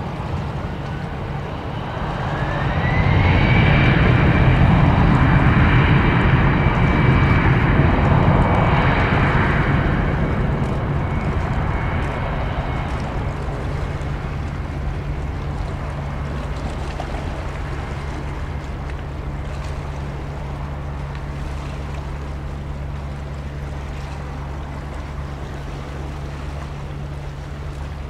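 Airbus A320 jet engines spooling up for takeoff: a whine rises in pitch about two seconds in and the engine noise swells to its loudest. The engines then run steadily at takeoff power through the takeoff roll, slowly fading as the aircraft accelerates away and climbs out.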